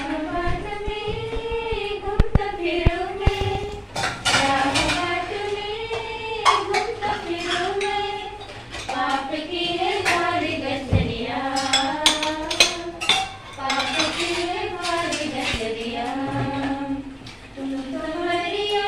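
Women singing a devotional song in praise of God, with plates and cutlery clattering at the sink at intervals.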